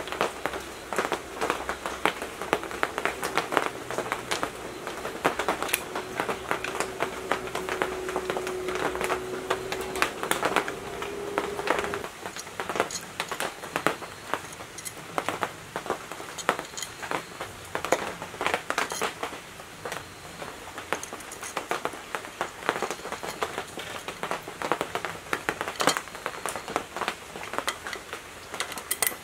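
Small metallic clicks and taps of ring-terminal wire lugs and terminal studs being handled and fitted on an electric motor's terminal block, with a steady hum for the first dozen seconds and a sharper click near the end.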